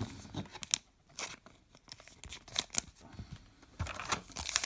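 A baseball card pack's wrapper being torn open and crinkled: scattered crackles and rips that grow denser near the end.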